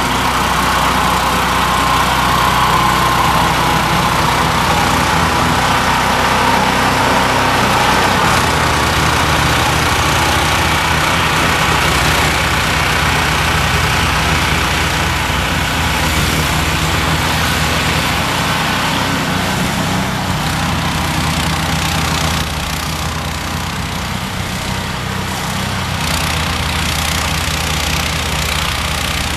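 Modified John Deere 1032 snowblower's 16 hp engine running steadily, its note shifting slightly a few times.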